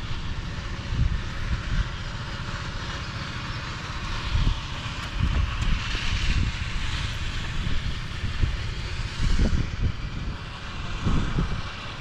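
Wind gusting across the microphone in irregular low rumbles over a steady rushing hiss.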